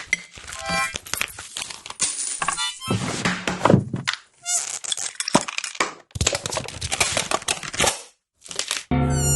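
A quick succession of short, unrelated foley sound effects, cut one after another with brief gaps between them. Most are clattery knocks and rattles, and a few carry short pitched tones.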